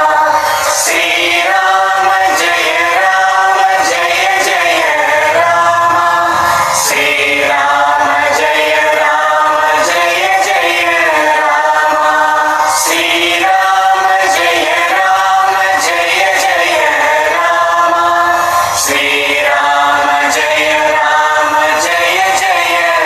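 Devotional Hindu singing to Lord Rama in a chanting style, sung voices over musical accompaniment.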